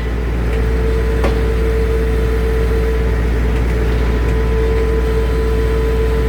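Circular sawmill running free with its blade spinning and not cutting wood: a steady low hum with a steady mid-pitched whine.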